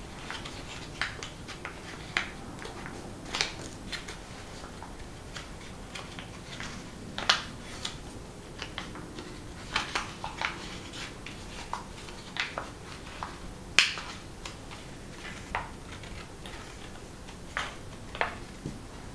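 Folded paper origami units crinkling and clicking in the hands as one unit is pinched together and worked into another with a thin flat tool: irregular short crackles and taps, the sharpest about 14 seconds in.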